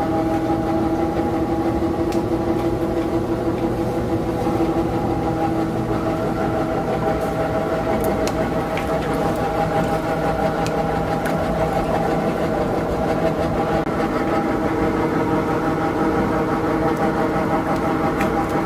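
Electric rice cake making machinery running with a steady, even drone made of several held tones, one of which drops out about six seconds in, with a few faint clicks over it.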